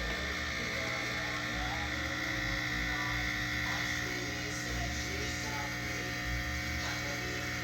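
Jura E8 bean-to-cup espresso machine running steadily as it brews the coffee for a flat white: an even mechanical hum with a steady high tone.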